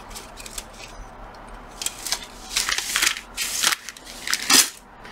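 Clear plastic wrapping crinkling and thin wooden dowels clicking together as they are handled: a few light clicks, then a run of loud rustling bursts from about two seconds in.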